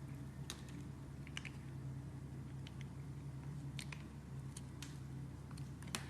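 A blade cutting into a bar of soap: scattered crisp clicks and crackles at irregular intervals, over a steady low hum.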